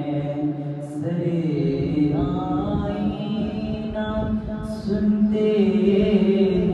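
A boy singing a naat, an Islamic devotional song, unaccompanied into a microphone, holding long notes that waver and slide between pitches.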